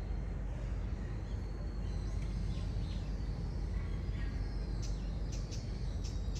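Outdoor ambience: a steady low rumble with birds chirping faintly, then a quick run of short chirps near the end.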